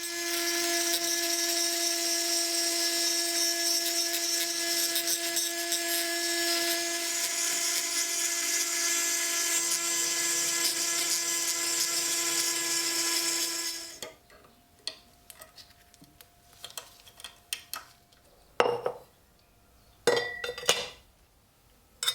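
Small high-speed rotary power tool running steadily with a whine and a scratchy hiss as it works rust off the old knife, then cutting off about fourteen seconds in. Several knocks and clatters of tools and parts being handled follow.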